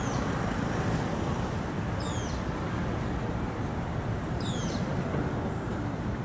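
Steady traffic noise with a bird's short, high, falling call, heard three times about two seconds apart.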